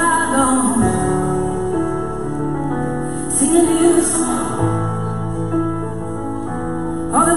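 Slow worship song: sustained keyboard chords with a sung phrase near the start, another about three and a half seconds in, and a third beginning at the very end.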